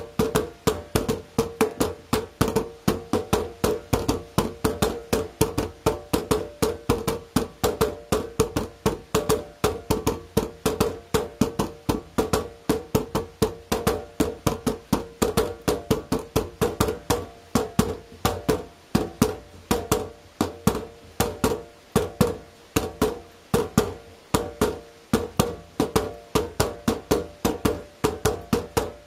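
Wooden nunchaku sticks drumming on the lids of two plastic bins: a fast, even run of sharp knocks, about four a second.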